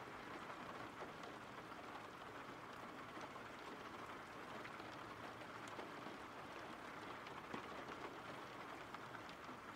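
Steady rain falling, a faint, even patter.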